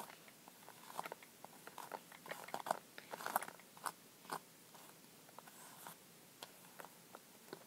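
A hairbrush stroking through a doll's long hair: a run of short, scratchy brushing sounds, closely spaced in the first half and thinning out later.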